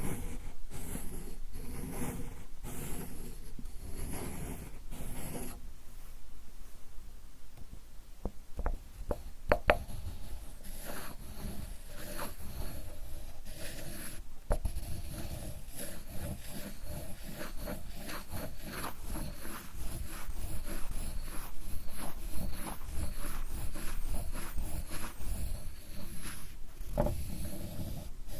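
Japanese ink stick (sumi) rubbed back and forth on an inkstone (suzuri), grinding ink in a steady run of rubbing strokes. A few sharper clicks come about a third of the way in and again around halfway.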